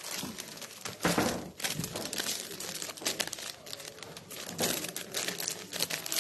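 Continuous crinkling, rustling noise made up of many small clicks, swelling louder about a second in and again near the end.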